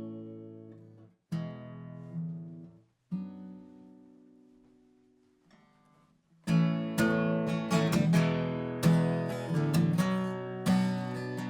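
Acoustic guitar playing a song's intro: three chords strummed once and left to ring out, a pause, then a steady strumming rhythm that starts about six and a half seconds in.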